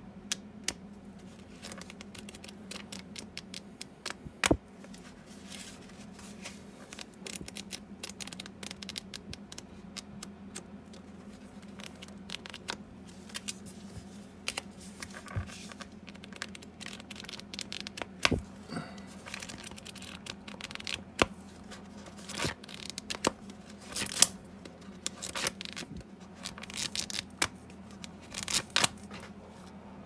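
Paper pages of a small hand-held flip book riffling off the thumb in quick runs of soft ticks and flutters, with rustling as the book is handled between runs and a few louder snaps.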